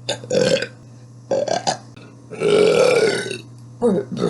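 A woman burping several times in a row, about four burps, the longest and loudest one about midway.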